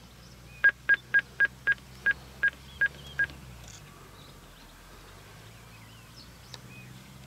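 Nine short electronic beeps at one pitch, starting about two-thirds of a second in, about three to four a second and slowing slightly toward the end.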